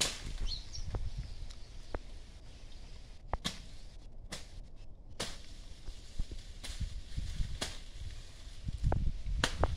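Irregular sharp knocks and clicks, roughly one a second, over a low rumble.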